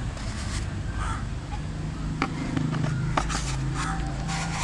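Crows cawing now and then, with a few sharp taps and knocks from a cut-open PVC pipe being handled, over a steady low hum.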